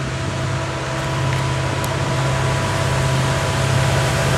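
Indian Railways WDG4 diesel-electric freight locomotive, an EMD 16-cylinder two-stroke diesel, approaching with a steady low engine drone and a faint higher whine, growing gradually louder as it nears.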